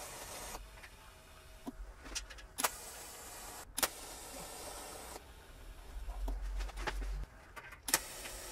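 Welding arc joining a stainless-steel tube to mild steel: a few short welds, each starting with a sharp click and hissing steadily for about a second before cutting off.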